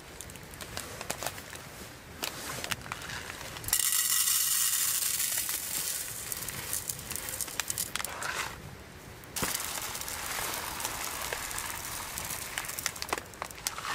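Plastic bag crinkling in the hand, then uncooked glutinous rice poured from the bag into an aluminium mess tin: a rushing patter of grains on metal, in two pours, one from about four seconds in and a second after a short pause.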